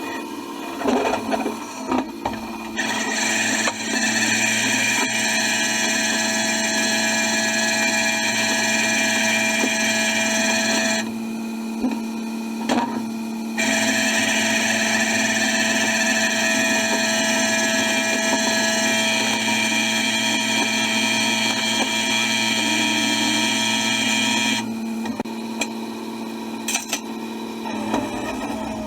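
Hydraulics of a rollback tow truck running steadily while a car is loaded onto the bed, in two long runs with a short stop between, over a steady low hum from the truck.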